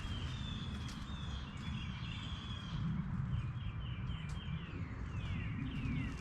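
Birds chirping in a run of short falling whistles, over a steady low rumble.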